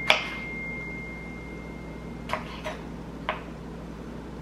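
Kitchen knife slicing a tomato on a wooden cutting board: four sharp knocks of the blade on the board, one just after the start and three between about two and three and a half seconds in. A thin, high, steady tone rings through the first two seconds.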